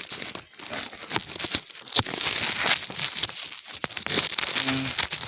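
Rustling, crackling handling noise of a phone being moved and positioned by hand, with many sharp scrapes and clicks throughout.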